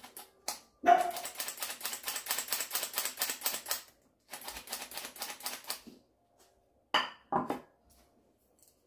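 Hand-held metal flour sifter clicking rapidly and evenly as it is worked to sift flour, in two runs separated by a short pause. Near the end there are two short knocks.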